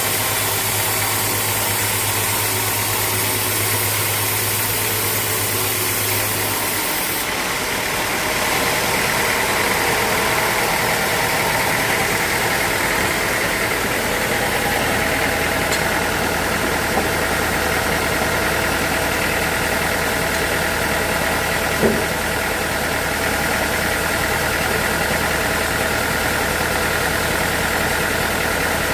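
Sawmill machinery running steadily: a continuous motor hum with a high steady whine. The sound changes abruptly about seven seconds in, and there is a single short knock near the end.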